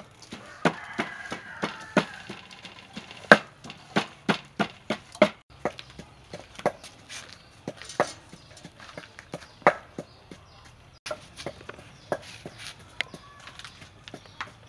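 Wooden pestle pounding in a wooden mortar: irregular sharp knocks, about two to three a second.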